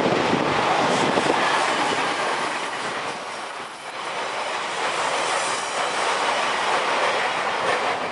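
A train passing close by, its wheels clattering over the rails with a steady heavy rumble and scattered clicks.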